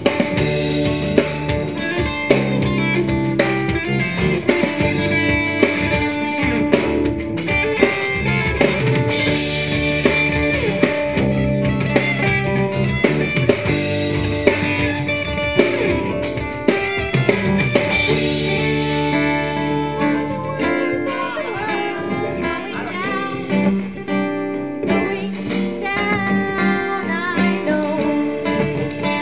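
Rock band music in an instrumental passage: electric guitar over drum kit, with bending guitar notes in the second half.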